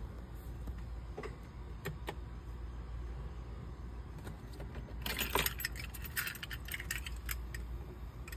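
Keys jangling in a run of light metallic clicks, starting about five seconds in, over a low steady hum.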